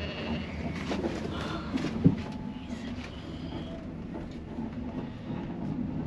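Sheep bleating from a grazing flock over a steady low mechanical rumble, with one sharp knock about two seconds in.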